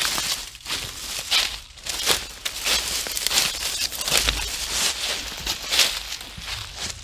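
Footsteps walking through dry leaf litter on a forest trail, rustling and crunching at a steady walking pace.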